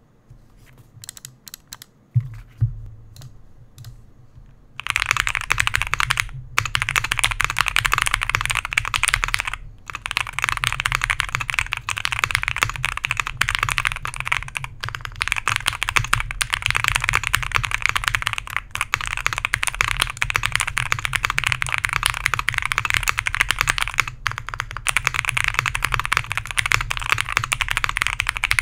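Typing on a Mr. Suit tenkeyless custom mechanical keyboard: lubed and filmed Alpaca linear switches in a POM plate, gasket-mounted, with PE and plate foam. A few scattered keystrokes at first, then fast, steady typing from about five seconds in, with a few brief pauses.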